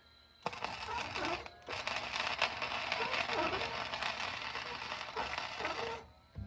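Electric arc welding: a steady crackling sizzle from the arc that starts about half a second in, breaks off briefly, then runs again for about four seconds and stops.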